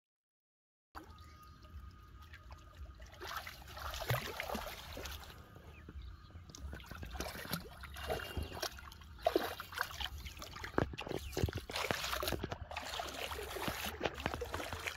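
Shallow water splashing and sloshing as a child wades through it and grabs at fish with his hands, in uneven bursts of small splashes. It starts after about a second of silence.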